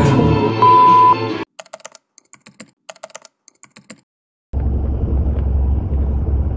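Karaoke music with a short, loud steady beep, cut off after about a second and a half; then a run of scattered keyboard-typing clicks, a brief silence, and from about four and a half seconds the steady low rumble of a moving vehicle.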